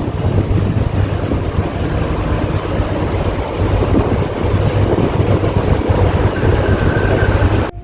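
Wind rushing over the microphone on the open deck of the Blue Star Delos ferry under way, over the ship's steady low rumble. It cuts off suddenly at the very end.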